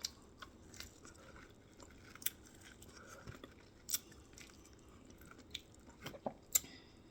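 Close-miked mouth sounds of eating: chewing and biting, with short sharp crunches every second or two and a quick cluster of them near the end.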